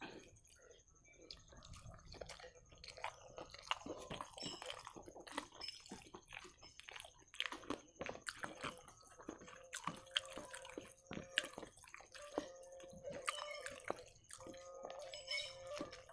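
Close-miked chewing and wet mouth sounds of someone eating rice and curry: a string of irregular small smacks and clicks. A faint steady hum-like tone joins in during the last few seconds.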